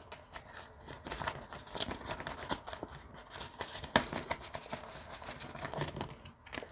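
Paper banknotes and clear plastic binder envelopes rustling and crinkling as they are handled, with scattered small clicks and one sharper click about four seconds in.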